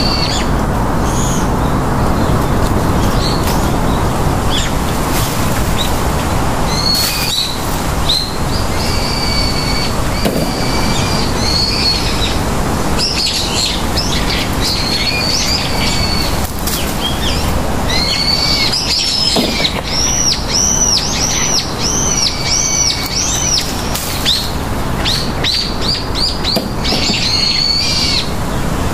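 Small birds singing and calling among the trees, over a steady rustle of leaves and branches being pushed about by hand. About two-thirds of the way in, one bird gives a run of quick arched chirps, about two a second.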